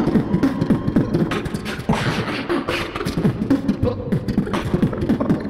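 Live beatboxing into a handheld microphone: fast mouth-made drum strikes mixed with short pitched bass tones, running without a break.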